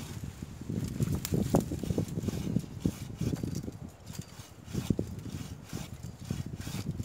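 Bow saw worked back and forth through a thick woody stem at the base of a bush, in uneven scraping strokes with knocks.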